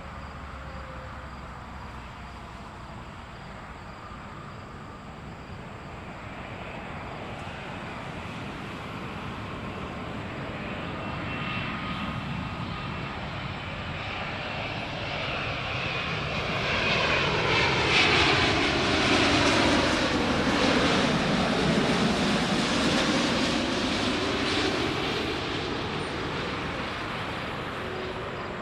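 Boeing 787-9 airliner on landing approach passing low overhead, its Rolls-Royce Trent 1000 turbofans whining. The sound swells to its loudest about two-thirds of the way through, with the engine tones sliding down in pitch as it goes by, then fades.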